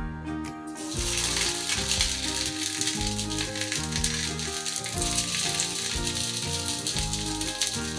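Coated tofu pieces sizzling as they go into hot oil in a frying pan, the sizzle starting about a second in and running on steadily. Background music plays underneath.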